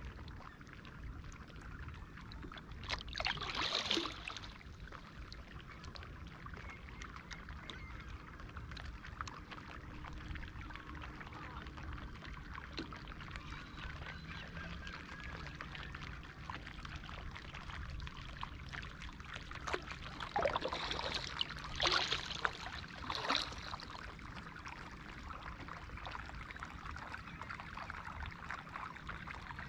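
Kayak paddle blades splashing and water pouring off them, in two spells about three seconds in and again around twenty to twenty-three seconds, over a steady low rush of wind and water against the hull.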